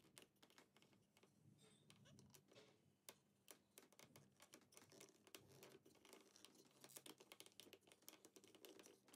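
Near silence with faint, scattered plastic clicks and taps that grow more frequent after about three seconds, from a plastic Play-Doh hairdresser chair being handled and turned to push out the Play-Doh hair.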